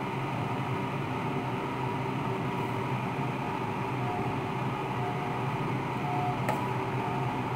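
A pot of fish soup cooking on the stove, making a steady hiss and hum, with one sharp click about six and a half seconds in.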